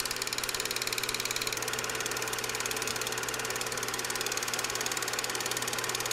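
Film projector running: its mechanism makes a rapid, even clatter over a steady low hum.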